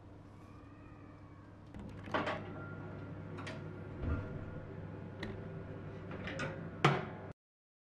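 Glass baking dish being set onto a metal oven rack and slid into the oven: several short clinks and knocks, the loudest a sharp knock just before the end, over a steady low hum.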